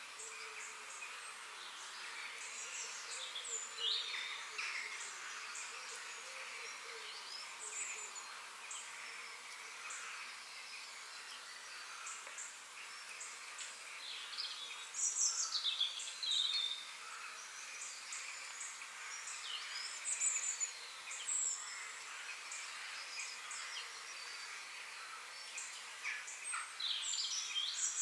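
Small birds chirping and twittering, with many short, quick falling notes, louder in clusters a few times. Underneath is a steady high hiss of outdoor background noise.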